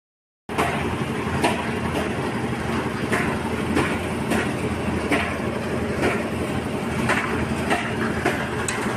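Concrete mixer running with a steady mechanical rumble, gravel knocking in the turning drum about once or twice a second. It starts about half a second in.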